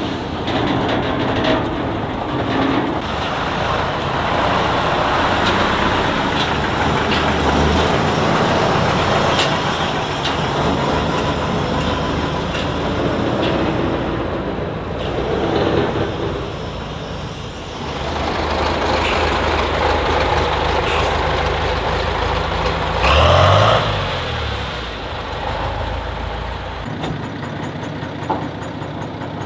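Heavy diesel trucks driving with their engines working hard, in a dense, continuous mechanical noise. About three-quarters of the way through there is a short, louder swell in which the engine pitch dips and rises again.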